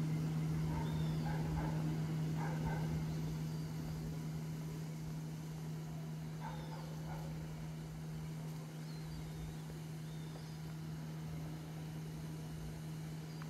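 A steady low machine hum, easing off slightly after a few seconds, with faint bird chirps over it.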